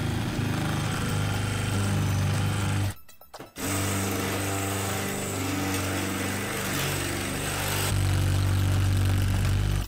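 Cordless drill boring into a euro cylinder lock in a door, the motor running hard under load, stopping for about half a second near three seconds in, then restarting and getting louder near the end. The bit is working against the lock's dense molybdenum core, which does not give way quickly or quietly.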